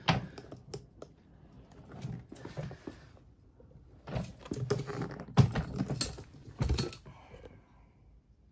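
Clicks and knocks of a fibreboard suitcase with leather straps and metal fittings being handled and turned over, with a cluster of sharper knocks about four to seven seconds in.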